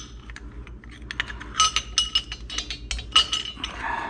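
Metal coil-over shock parts clinking and tapping together as the spring seat and collar are fitted onto the coil spring by hand. The taps are irregular, come in small clusters, and ring briefly.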